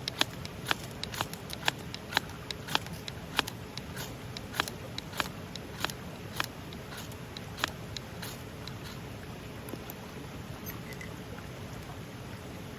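A run of sharp clicks, irregular at about two a second, that stops about eight seconds in, over a steady hiss.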